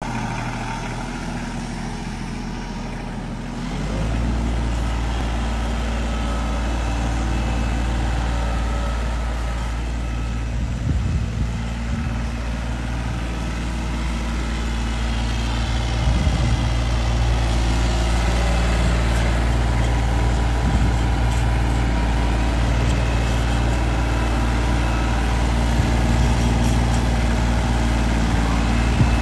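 Ford 1320 compact tractor's three-cylinder diesel engine running steadily as the tractor is driven. It gets louder about four seconds in and again a little past the middle.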